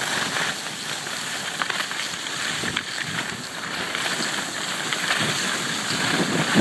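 Skis sliding and scraping over packed snow on a downhill run: a steady hiss with a few faint crackles.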